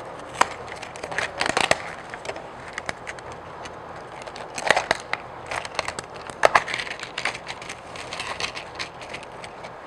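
Rebuild-kit packaging being opened and handled, with irregular clicks and crackles, the loudest about one and a half, five and six and a half seconds in.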